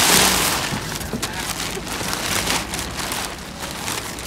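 Brown kraft packing paper being pulled and torn away by hand, crinkling and rustling with many small crackles, loudest in the first half second.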